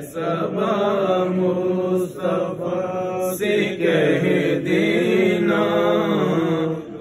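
A man chanting an Urdu salaam, a devotional salutation to the Prophet Muhammad, in a slow, wavering melody with long held notes and short breaths between phrases.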